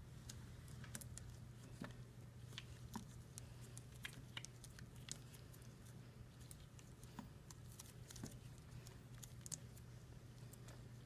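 Faint, scattered small clicks and rustles of gloved hands tying suture throws around a plastic chest drain, over a steady low hum.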